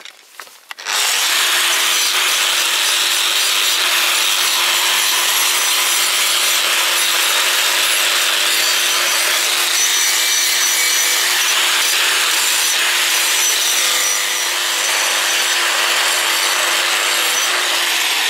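Angle grinder with a wire brush scrubbing a forged steel bar clean: the motor starts about a second in and then runs steadily and loudly with the hiss of the wire bristles on the metal and a steady motor hum beneath.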